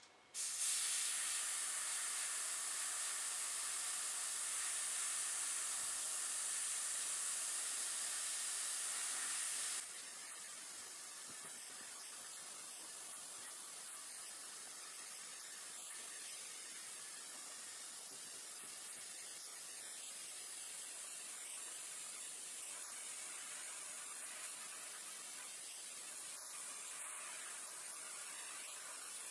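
Gravity-feed airbrush spraying yellow paint: a steady hiss of air and paint from the nozzle. About ten seconds in it drops suddenly to a quieter steady hiss.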